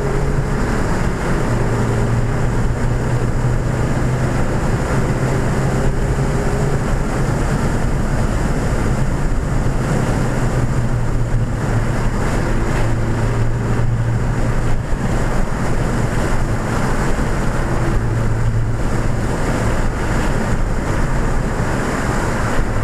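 Inside the cabin of a 2014 Ford Fiesta ST at speed, its turbocharged 1.6-litre four-cylinder engine drones steadily over heavy road and wind noise. The engine note dips and rises a little as the revs change.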